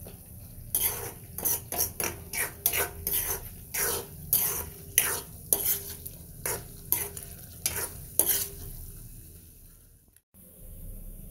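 A spatula scraping and knocking against a karahi wok as mutton karahi is stirred in sizzling gravy, about two strokes a second. The strokes stop about three-quarters of the way through, leaving only the low sizzle.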